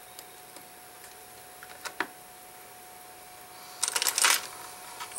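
Small clicks and scraping as a tiny ladies' watch movement is handled in a watch movement holder: a few light ticks about two seconds in, then a short quick cluster of clicks and scrapes about four seconds in. A faint steady hum lies underneath.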